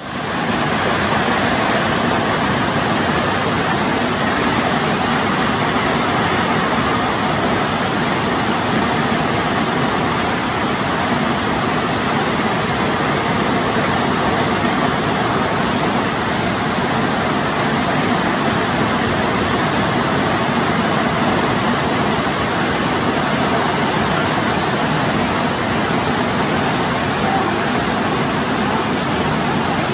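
Nauyaca Falls: a large waterfall pouring onto boulders and the rapids below it, a loud, steady rush of water that starts abruptly and holds unchanged.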